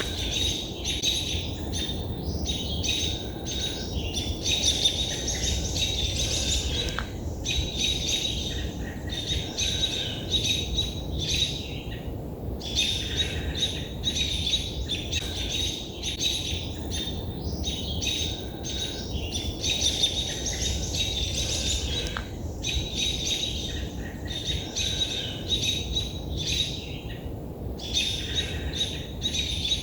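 Several songbirds singing and chirping in a dense, continuous chorus, with brief lulls, over a steady low rumble.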